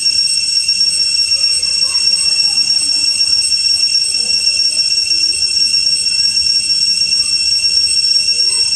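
Loud, steady, high-pitched insect drone, unbroken and even in level, with faint voices underneath.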